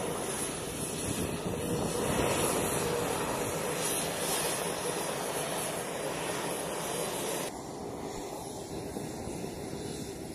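Steady rushing noise of jet aircraft engines running on a flight line, swelling a little a couple of seconds in and turning thinner and slightly quieter about seven and a half seconds in.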